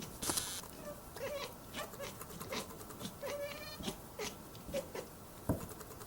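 Two domestic cats trading short, squeaky mews back and forth, about a dozen brief calls in quick succession, one a little longer near the middle, with a short rustling burst about half a second in.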